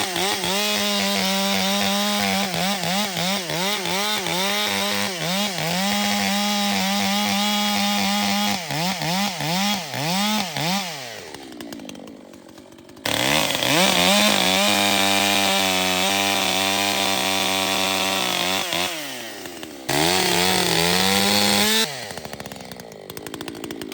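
Gas chainsaw running at high revs while cutting wood, its engine pitch repeatedly dipping and recovering as the chain loads in the cut. The revs fall away a few times as the throttle is let off, with the sound breaking off abruptly twice.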